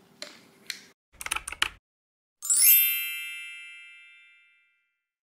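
A quick run of sharp clicks like typing, then a bright chime that rings and fades away over about two seconds: an end-card sound effect.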